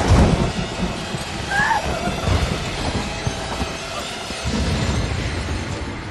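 Horror-film sound mix: a loud hit at the very start, then a rumbling noise bed with a couple of brief wailing cries.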